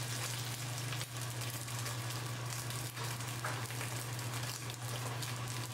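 Steak searing in a very hot cast iron skillet: a steady, crackling sizzle as the freshly turned, unseared side meets the pan to form a crust.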